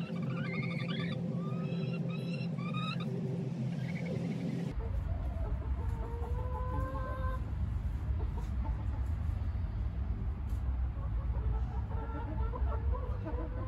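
Chickens clucking and calling in short gliding bursts. For the first few seconds there are steady tones and chirping behind them; about five seconds in this changes abruptly to a low rumble under the clucking.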